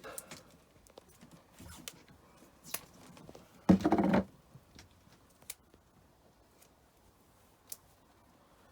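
Tape being pulled off the roll, one loud half-second tearing sound about four seconds in, among light clicks and rustles of hands working at cable connections.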